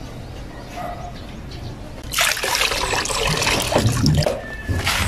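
Coconut water pouring out of an opened young green coconut into a metal basin of liquid, a splashing trickle that starts about two seconds in.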